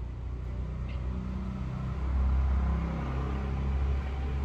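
Low, steady motor rumble with a hum, swelling about two seconds in.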